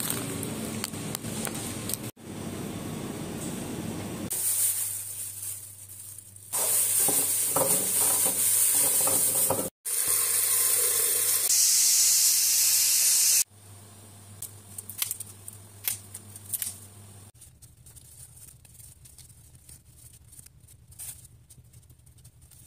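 Stovetop pressure cooker hissing loudly as it vents steam for about seven seconds, broken once, then cutting off abruptly. Before it comes steady shop background noise; after it come faint clicks of a knife working a heated chestnut's shell.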